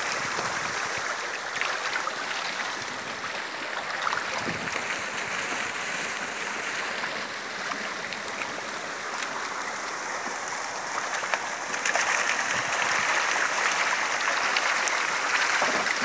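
Water rushing and splashing along a narrow concrete fish-farm raceway, pouring over a small step at its head: a steady noise that grows louder about twelve seconds in.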